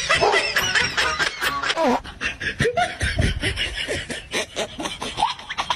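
Laughter in quick, repeated bursts, with some rising and falling pitch glides.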